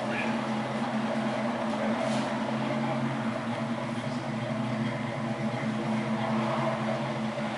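A steady mechanical hum at one unchanging pitch, with a few faint ticks.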